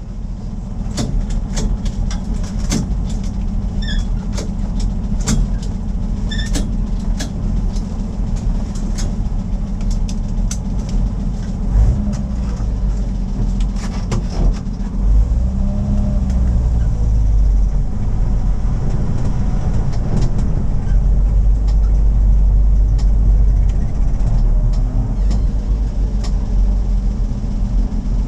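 1970 Toyota FJ40 Land Cruiser's inline-six engine running, heard from inside the cab, with sharp clicks and rattles scattered through the first half. About halfway through the engine note grows louder and deeper as the truck is put in gear and pulls away, and it stays that way.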